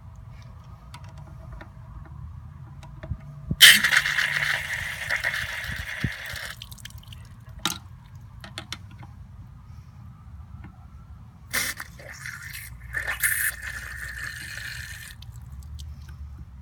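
Water hissing out in two spurts of a few seconds each, with a few small knocks between them.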